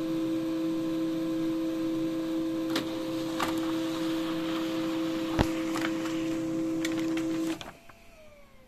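HP Laser 107w laser printer running as it prints a page: a steady motor hum with a few sharp clicks. About seven and a half seconds in it stops abruptly, leaving a faint falling whine as it spins down.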